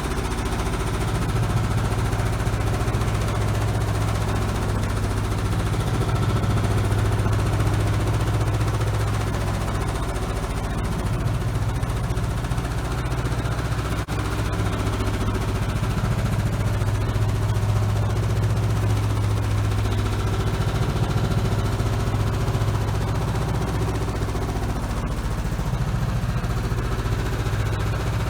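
A worn-out washing machine running hard, with a loud, steady low hum and a fast, continuous rattling clatter, the sound of a machine on the verge of breaking down.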